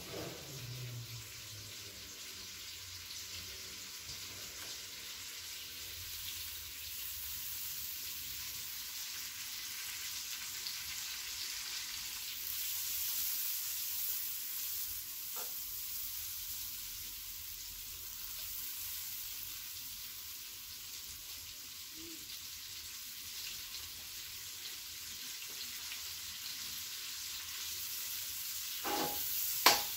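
Ghee melting and sizzling in a stainless steel kadai over a gas flame turned up high, a steady hiss, while a metal spoon stirs it. Near the end the spoon clicks sharply against the pan several times.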